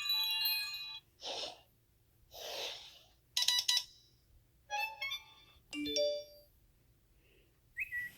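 A run of short iPhone alert and system tones played one after another: bright chiming beeps, two soft swooshes in the first three seconds, a falling two-note tone in the second half and a short rising beep near the end.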